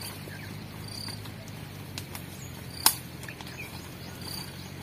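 Outdoor scrubland ambience: short high chirps repeating about every second or so over a low steady rumble, with one sharp click about three seconds in.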